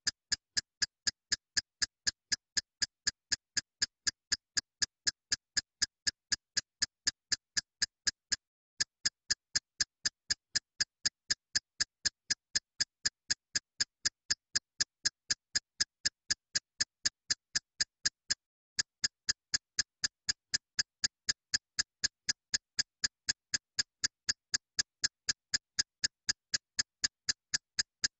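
Steady, evenly spaced ticking, about three sharp clicks a second, like a looped backing beat or metronome. It skips briefly about every ten seconds.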